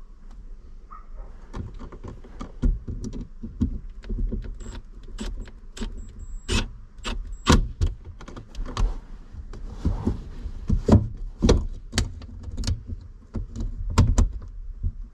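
Irregular sharp clicks, taps and knocks of hand work on a first-generation Toyota Tacoma's rear sliding window latch, as parts and tools are handled and fitted, over a steady low rumble.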